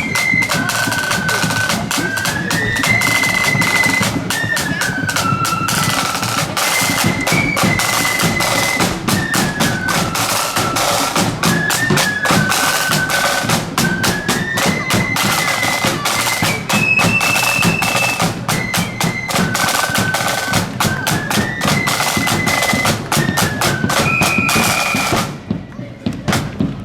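Marching band playing on the march: a high, stepwise melody line over busy snare and bass drumming. The playing stops abruptly near the end.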